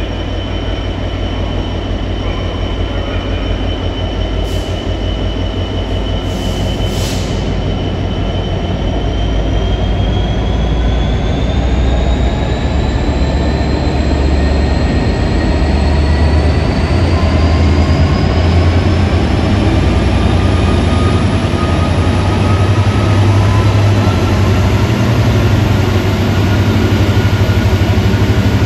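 Class 66 diesel-electric freight locomotive with its two-stroke V12 diesel under power, pulling away from a stand with a heavy container train. It makes a deep, throbbing rumble that grows slowly louder, with a thin whine that rises in pitch as the train gathers speed.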